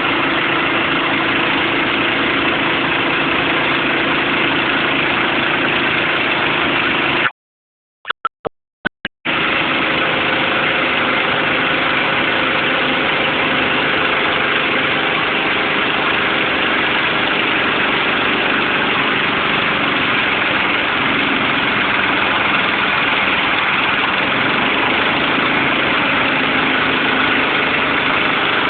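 Engine of a hydraulic bandsaw sawmill running steadily. The sound cuts out suddenly for about two seconds, about seven seconds in, with a few short blips, then resumes unchanged.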